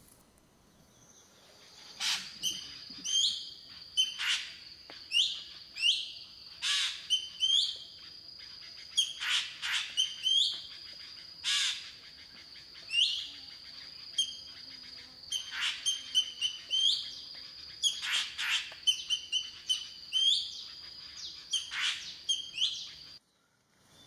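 Hair-crested drongo calling: a racket of harsh, metallic notes, many with a quick upward hook and some dropping sharply, coming about once or twice a second from a couple of seconds in. Under them runs a steady high thin tone that cuts off suddenly near the end.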